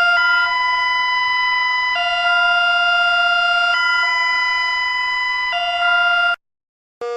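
Electronic emergency alert tone alternating between a high and a low pitch, each held for a little under two seconds, cutting off abruptly about six seconds in. A rising siren wail starts right at the end.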